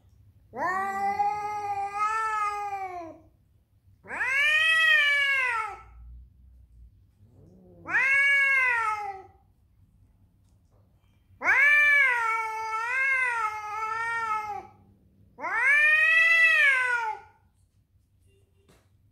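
A domestic cat yowling angrily at another cat in a territorial standoff: five long, drawn-out yowls that rise and fall in pitch, the fourth one longest and wavering.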